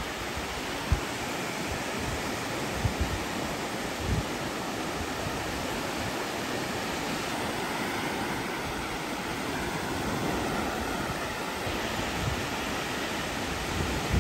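Sea surf washing steadily onto the beach, an even rushing noise, with a few soft low thumps in the first few seconds.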